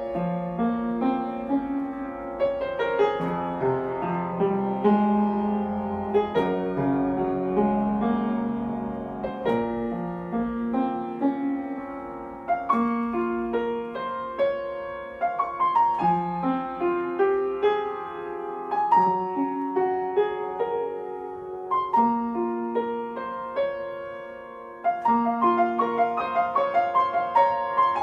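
Background piano music: a continuous run of notes.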